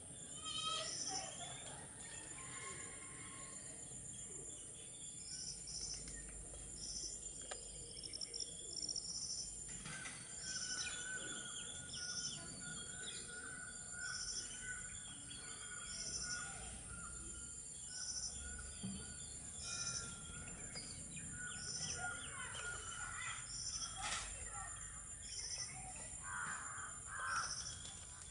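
Outdoor bird calls: a short high chirp repeating about every second and a half among other scattered calls, over a steady high insect drone.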